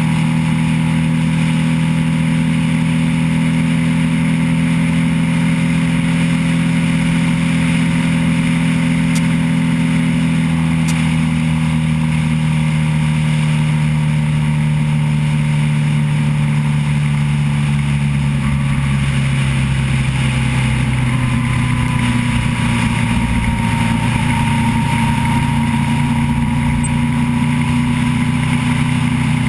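Motorcycle engine running steadily at road cruising speed, with wind rush over the bike. The engine note eases slightly lower about two-thirds of the way through, then holds.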